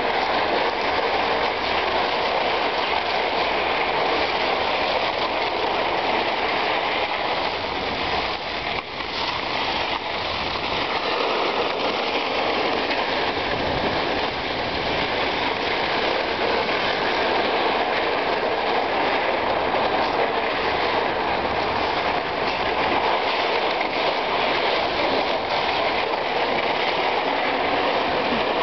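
Steady scraping hiss of ice-skate blades and a plastic saucer sled gliding over rough outdoor rink ice.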